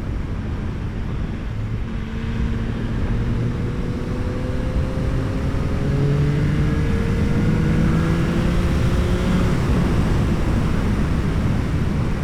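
Yamaha R9's three-cylinder engine through an Akrapovic exhaust, revs climbing slowly for several seconds as the bike pulls, then easing off about three-quarters of the way through, over a steady rush of wind and road noise.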